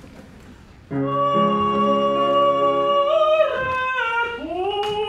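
A woman singing long held notes in an operatic style, accompanied by chords on an upright piano. About a second in, the piano chord and her voice enter together; a couple of seconds later her voice slides up, then falls in a curving line.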